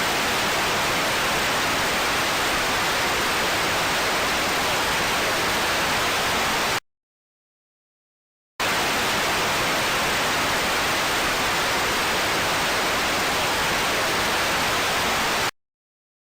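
Television static: a steady, even hiss that cuts off abruptly about seven seconds in, falls silent for about two seconds, then starts again and cuts off once more shortly before the end.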